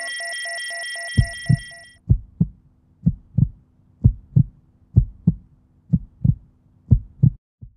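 Heartbeat: paired low thumps (lub-dub) about once a second, starting a little over a second in. Under its start a steady high electronic tone with fast ticking fades out about two seconds in.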